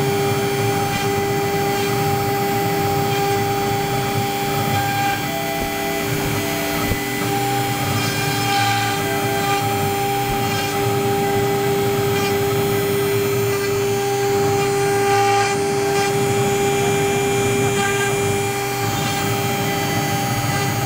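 CNC router spindle running at speed, its steady whine of several held tones over a rough cutting noise as the bit engraves letters into a fibreboard sheet.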